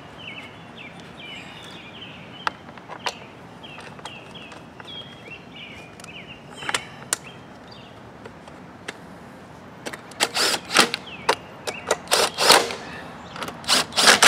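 Cordless impact driver run in several short bursts in the last few seconds, driving in the screws that hold the recoil starter housing onto the mower engine. Before that, a small bird chirps repeatedly in the background.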